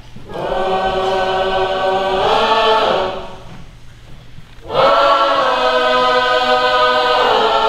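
Choir of women's and girls' voices singing two long held chords, each about three seconds, with a short breath-like lull between them.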